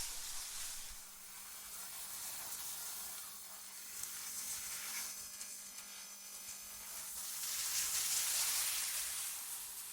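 Synthetic wind ambience: a high, airy hiss that eases off about a second in and swells up again near the end, with a faint steady low tone underneath.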